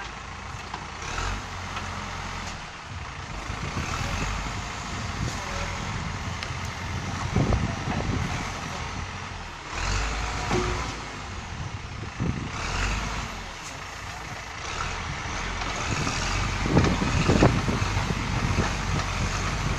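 Caterpillar 424B backhoe loader's diesel engine running under hydraulic load as the backhoe arm swings and digs, swelling in surges every few seconds, with a few sharp knocks.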